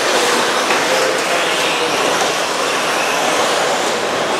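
RC stadium trucks racing around the track: a steady, dense whirring of their motors and drivetrains, with no single event standing out.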